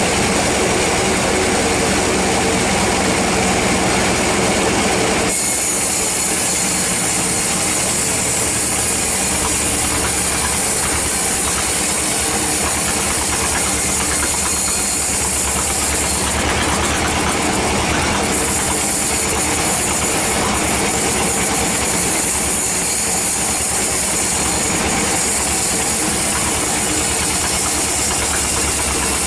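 Sawmill band saw running with a steady low mechanical drone. About five seconds in, a high hiss joins it as the blade cuts along a teak log, and the cutting continues steadily after that.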